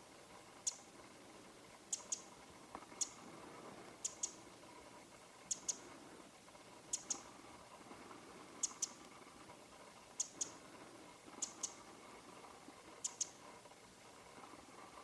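Winter wren (Troglodytes troglodytes) giving its call, not its song: short, sharp, high-pitched notes, single or in quick pairs, repeated about every second and a half.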